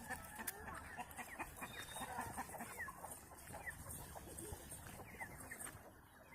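A flock of country chickens clucking and cheeping: many short calls overlapping, with a few sharp clicks.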